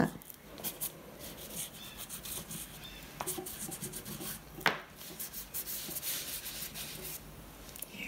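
Oil pastel rubbed and scraped across paper in many short strokes, a dry scratchy rubbing, with one sharp click about halfway through.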